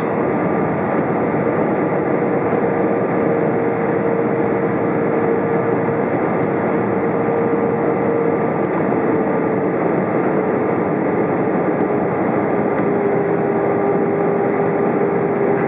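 Cabin noise of an Airbus A320 airliner on final approach: a steady roar of engines and airflow over the wing, with a steady hum that dips slightly in pitch a couple of times as the engine power is eased.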